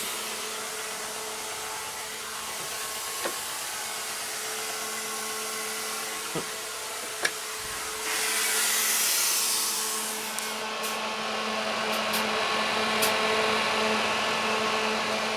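Antari Z Series Fazer fog machine running, its fan whirring steadily with a low hum, a few light clicks and a louder hiss for a couple of seconds about halfway through.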